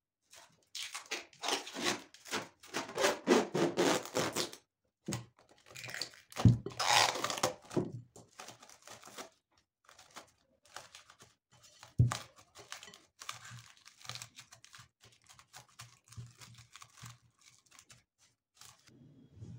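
Packaging being handled: loud crinkling and tearing over the first several seconds, then quieter rustling. Two sharp knocks come about six and a half and twelve seconds in.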